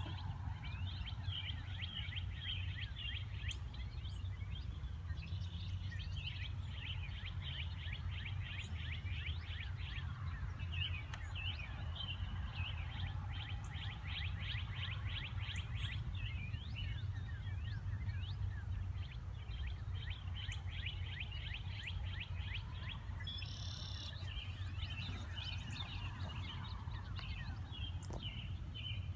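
Several songbirds chirping and singing in quick runs of short falling notes, over a steady low rumble.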